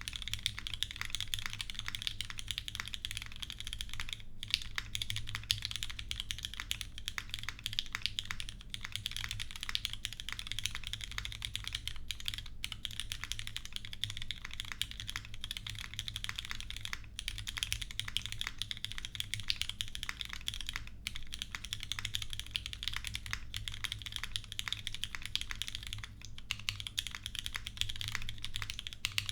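Steady, fast typing on a Keycult No.2 Rev.1 custom mechanical keyboard: lubed and filmed retooled Cherry MX Black linear switches with GMK keycaps, a full aluminium plate, a brass base and no foam. The keystrokes run thick and continuous, with a few short pauses.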